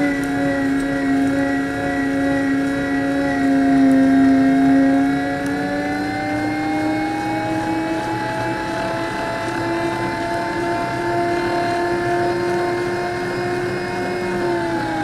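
Motor-driven meat grinder running with a steady whine as its auger grinds chocolate mini cones through the plate. The pitch sags a little about four seconds in, then rises and holds.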